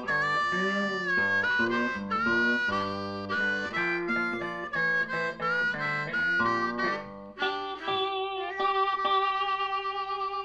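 Blues harmonica wailing over guitar in the instrumental close of the song, changing notes quickly, then settling into long held notes near the end as the tune winds down.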